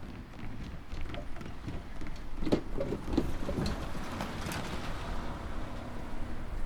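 A road vehicle driving over the railway level crossing, with a few knocks about halfway through as it goes over the rails.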